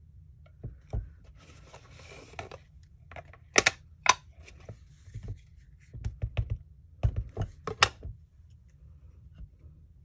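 Light plastic clicks and taps from handling a Distress Oxide ink pad and a small acrylic-block rubber stamp on a craft table as the stamp is inked. A few sharper clicks stand out about halfway through and near the end.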